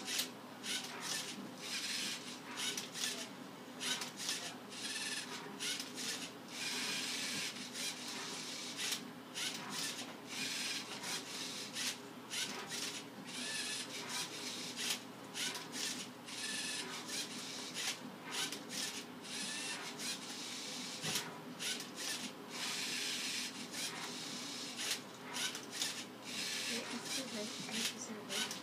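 Lego Mindstorms NXT MindCuber robot solving a Rubik's cube: its motors whir and the plastic cube scrapes and clacks as it is turned and flipped, in a stop-start series of short moves.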